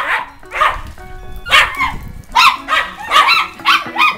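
Small dog barking over and over in short, sharp barks about every half second, excited barking while it plays with a ball. Faint music runs underneath.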